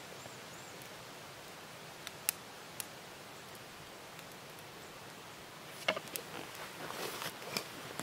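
Quiet crackling of a smouldering twig campfire: three sharp snaps about two to three seconds in. From about six seconds in, irregular rustling and knocking of clothing and grass as a person kneeling beside the fire gets up.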